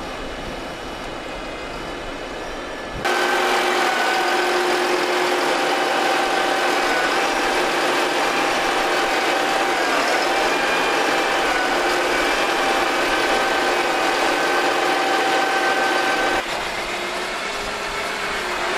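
Tolmac MT12 front-mounted potato lifter and its tractor running steadily in the field. About three seconds in it gets louder, close to the lifter's hydraulics and cooler fan, with a steady high whine over the drone. Near the end it drops back to a quieter drone.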